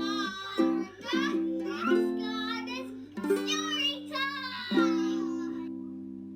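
Ukulele strummed in short chords under a sung tune. Near the end the voice stops and a last strummed chord rings out and fades.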